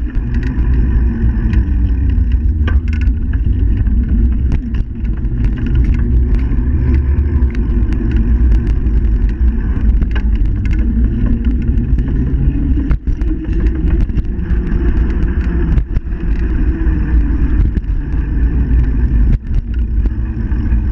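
Riding noise from a bicycle, picked up by a handlebar-mounted GoPro Hero 3+: a steady, loud low rumble of wind and tyre-on-pavement vibration. It is broken by frequent sharp knocks and rattles as the bike goes over bumps and joints in the paving.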